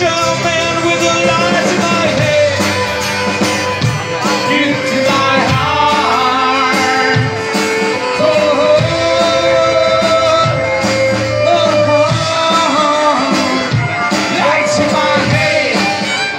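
Live band music: singing over guitar, violin and drums.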